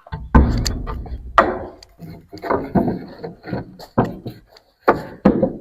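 Wooden boards knocking and clattering, about eight sharp, irregular knocks as the boards are handled and set against the wall.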